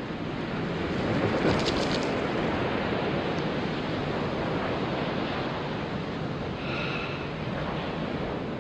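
Steady rushing noise of waves washing on a shore, swelling about a second in, with a brief high-pitched call near the end.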